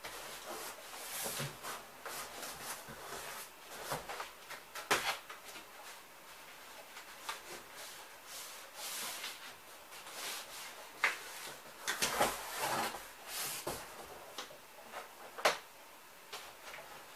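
Hands pressing and smoothing self-adhesive kraft paper tape onto the edges of a cardboard cabinet: irregular rubbing and rustling of paper on cardboard, broken by several sharper crackles and knocks.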